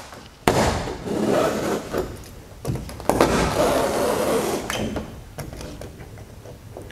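Utility knife slicing through a wing's 40-year-old aircraft fabric covering, a scratchy ripping sound in two long cuts, the first starting sharply about half a second in, with a weaker one near the end.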